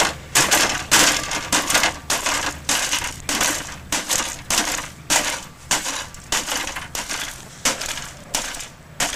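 Repeated hammer blows smashing the exposed insides of an old desktop PC, about two strikes a second, with cracking and crunching of breaking parts.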